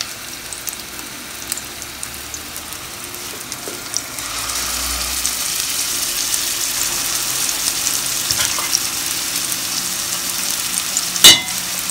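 Raw minced-meat cutlets sizzling in oil in a frying pan, the sizzle growing louder about four seconds in. One sharp knock near the end.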